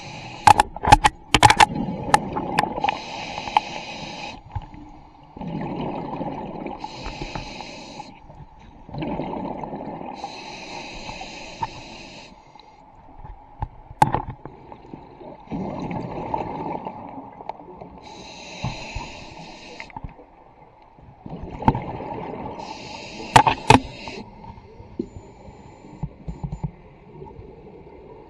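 Scuba diver breathing on a regulator underwater: hissing inhalations through the regulator alternate with bubbling exhalations, one breath every few seconds. A few sharp clicks come in the first two seconds and again near the end.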